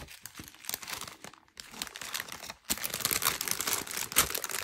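Small clear plastic zip-top bags of diamond painting drills crinkling and crackling as they are handled and gathered together. There is a short lull about a second and a half in, and the crinkling is louder and busier in the last couple of seconds.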